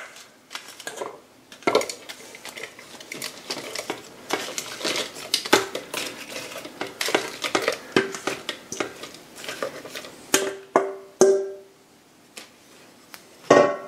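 Wooden spoon scraping and knocking against a bowl while softened sautéed chilies, onion and garlic are pushed into a plastic food-processor bowl: a string of irregular clicks and knocks, with a few short ringing taps near the end.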